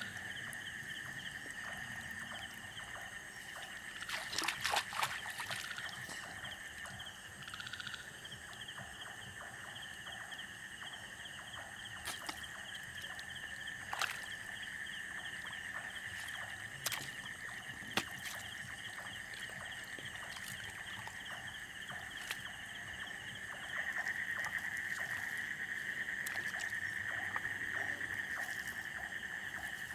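Feet wading through shallow water, sloshing and splashing, with a few sharper splashes and knocks, over a steady high-pitched chorus of night-calling animals.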